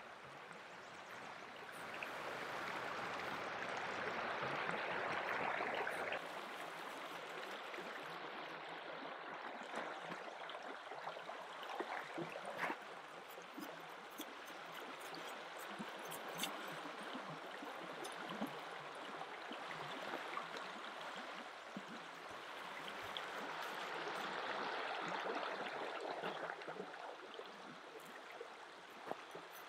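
A river running over a pebble bed: a steady rush of water that swells twice, with a few light clicks and taps over it.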